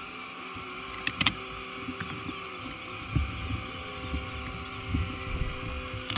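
Dark honeybees buzzing around an opened hive, the wavering drone of single bees flying past coming and going. A sharp wooden click about a second in as the hive frames are handled.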